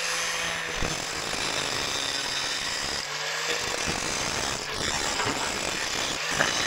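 Angle grinder with an abrasive disc grinding the metal lip of a hole cut in a steel deck, cleaning it up for welding. The motor runs free for a moment at the start, then bites into the metal; the disc comes off the metal briefly about three seconds in and then goes back to grinding.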